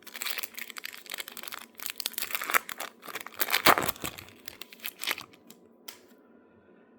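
Foil wrapper of a Topps baseball card pack crinkling and tearing as it is opened by hand; the crackling is loudest midway and stops about five seconds in.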